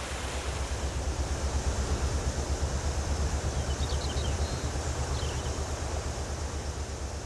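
Narrowboat engine idling with a steady, rapid low throb.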